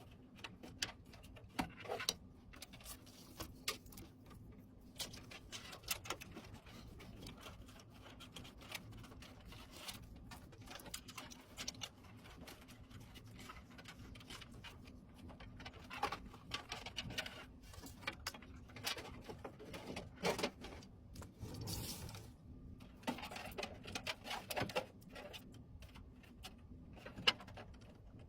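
Hands handling PC parts during assembly: scattered small clicks, taps and rustles, a few of them sharper, over a faint steady hum.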